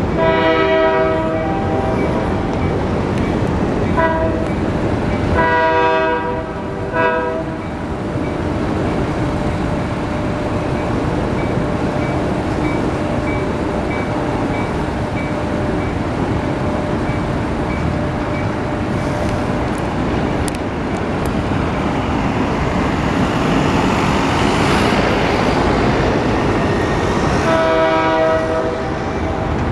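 Union Pacific freight train rumbling past while its locomotive sounds a multi-note air horn: a long blast at the start, a short one, another long one a few seconds later, and a final blast near the end.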